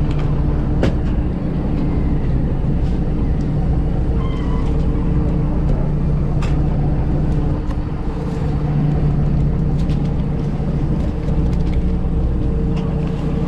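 Fishing boat engine running with a steady hum, with scattered knocks and thuds of fish and gear on the deck and a few short gull calls over it.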